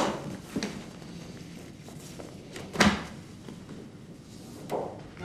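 A few knocks and bumps of office furniture, a desk and chair being handled. There is a sharp knock at the start, a heavier thump about three seconds in, and a softer knock near the end as the seated man pushes up from his chair.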